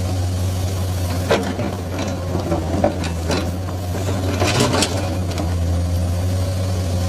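Komatsu excavator's diesel engine running steadily, with a few short metallic knocks from the machine while it works.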